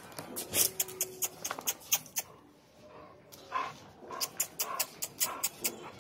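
Dogs at play: a dog gives short, high cries from about halfway through, among many sharp clicks and taps throughout.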